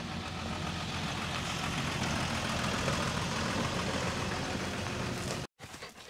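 Vehicle engine idling steadily, with a constant low hum under a broad even hiss; it cuts off abruptly about five and a half seconds in.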